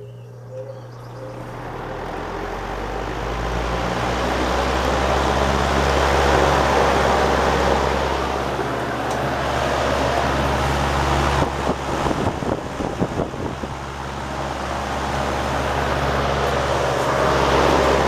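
1959 Lasko 20-inch oscillating box fan running: a low motor hum under the rush of air from the blade, building over the first few seconds, then swelling and fading about every eleven seconds as the fan sweeps back and forth. Around the middle the air rush turns briefly gusty and uneven.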